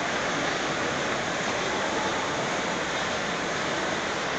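Ride-on 5-inch-gauge garden railway train rolling along its track, heard from aboard as a steady, even rumble and hiss.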